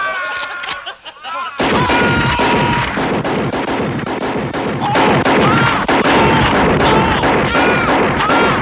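Men laughing, then about a second and a half in several guns, mainly shotguns, open fire together in a rapid, continuous volley that keeps going without a break, with voices mixed in.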